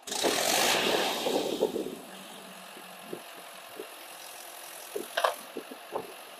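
Diesel engine of a Swaraj 843 XM tractor stuck in deep mud, loud under throttle for about two seconds and then settling to a steady lower running sound, with a few short knocks.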